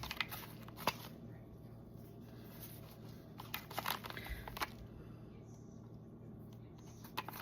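Faint crinkling and rustling with scattered light clicks, from fresh Parmesan cheese being handled and sprinkled over a dish; most of it comes in a cluster near the middle.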